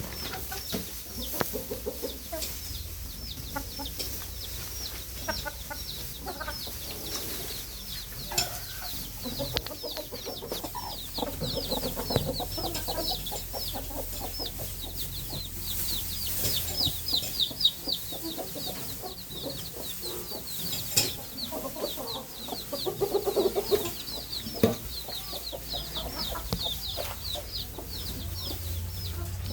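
Flock of chickens clucking, over a constant chorus of many short, high-pitched cheeping calls, with a few sharp knocks.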